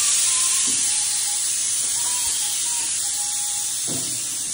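A steady, loud hiss, with faint wavering thin tones beneath it.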